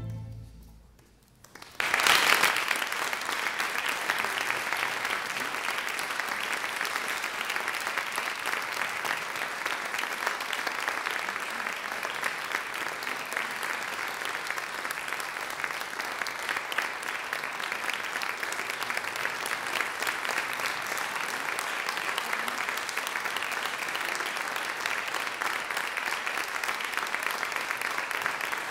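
The last chord of a string orchestra dies away into about a second and a half of silence. Then audience applause breaks out about two seconds in and goes on steadily.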